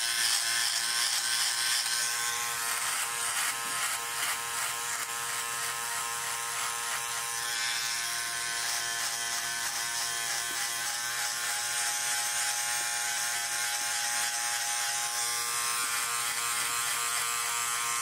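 Philips OneBlade electric trimmer-shaver running with a steady buzz as it is drawn over the face, cutting stubble.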